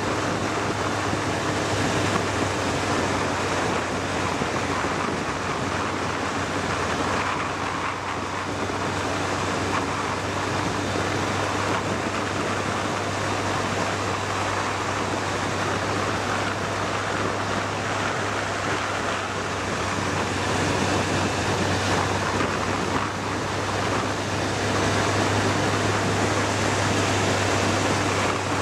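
Wind rush and road noise of a motorcycle riding at speed, over a low steady engine drone; the noise grows a little louder about three quarters of the way through.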